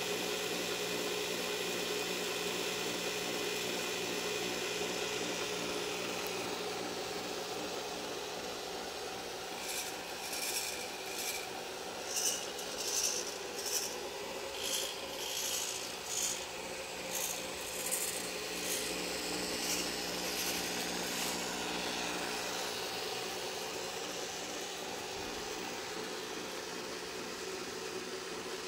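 Corded electric drill running steadily, spinning the capstan shaft of a cable-driven servo arm. From about ten to twenty-one seconds in, a string of short high-pitched whirs comes about once a second as the micro servos pull their cables.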